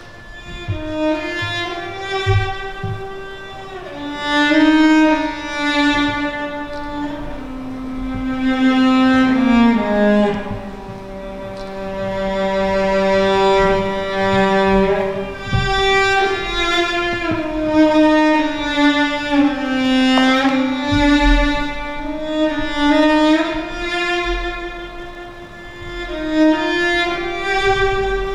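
Slow music on bowed string instruments: long held notes that slide slowly between pitches, several lines sounding together.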